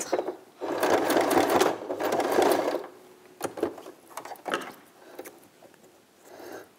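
Domestic electric sewing machine running for about two seconds, stitching through a folded cotton mask with an elastic inside, then stopping. A few short clicks follow.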